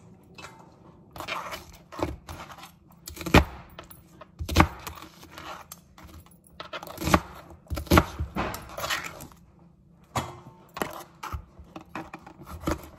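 Kitchen food-prep clatter as vegetables are cut and handled: irregular sharp knocks and clinks of a knife, cutting board and bowl, one every second or two.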